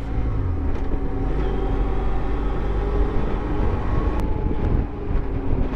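BMW F700GS motorcycle's parallel-twin engine running at a steady cruise, under a dense low rumble of wind and road noise on the helmet microphone.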